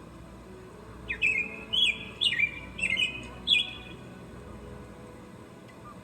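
A songbird calling about five times in quick succession, each call a short note that drops in pitch and holds briefly, then falling silent after about three seconds over a faint steady background hum.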